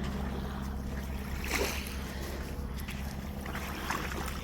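A small propeller aircraft from a nearby light airfield droning steadily at a distance, with a brief rustle of handling noise about a second and a half in.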